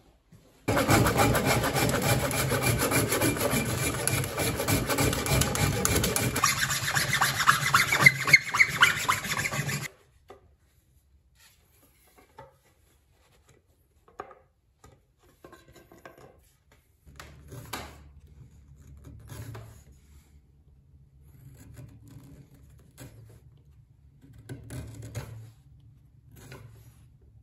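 Loud, fast scraping of a tool on wood for about nine seconds, stopping abruptly. Later come faint clicks and scrapes of a small carving chisel cutting into a wooden block.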